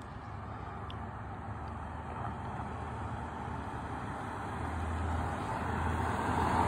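A car approaching along the street, its engine hum and tyre noise growing steadily louder.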